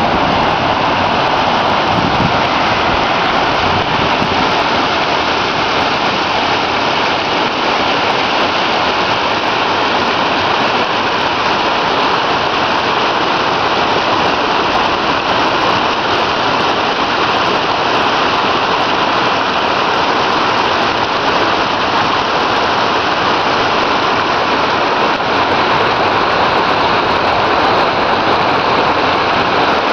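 Steady rush of water pouring into a concrete canal, an even splashing hiss with no let-up.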